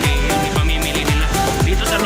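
Electronic dance background music with a steady beat: a deep kick drum that drops in pitch on each hit, about twice a second, under a synth melody.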